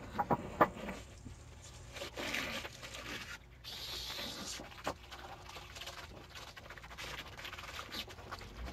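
Scrubbing and splashing in a sink of soapy water: a brush attachment on a small submersible pump's hose working over a metal part. There are a couple of sharp knocks about half a second in.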